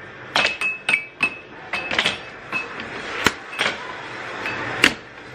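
Air hockey game: plastic mallets strike the puck and the puck clacks off the table's rails, about ten sharp knocks at uneven intervals.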